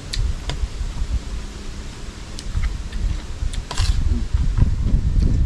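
Wind buffeting the microphone in a low, gusty rumble that grows stronger in the second half, with a few sharp clicks scattered through it.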